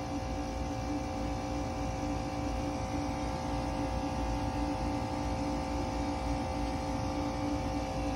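Steady machinery hum of a running AAON HVAC unit: a low rumble under a few unchanging droning tones.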